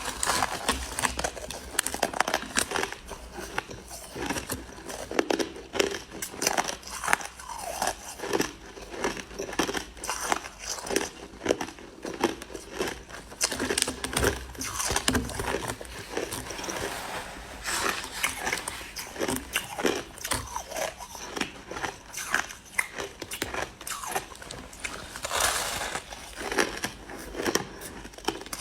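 Crushed ice being bitten and chewed, a dense run of irregular crunches and crackles going on without pause.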